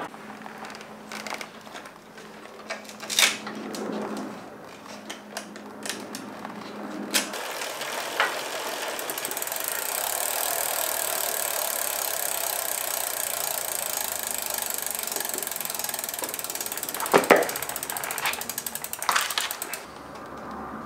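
A few handling knocks, then the bicycle's rear wheel is set spinning in the stand: a rapid ticking of the freehub and a steady hiss from the tyre brushing the mudguard. The hiss slowly fades until a couple of knocks near the end. This is the rub check on a newly fitted mudguard.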